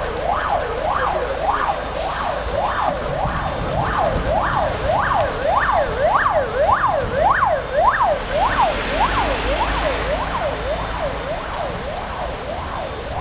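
Emergency-vehicle siren in a fast yelp, its pitch sweeping up and down about twice a second. It grows louder toward the middle and fades near the end, as the vehicle passes.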